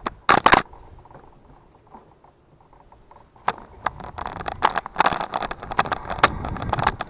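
A few sharp clicks and knocks at the start, then from about three and a half seconds in a growing stream of rattles and clicks over rising rushing noise: a bicycle setting off and rolling, its parts rattling over the ground.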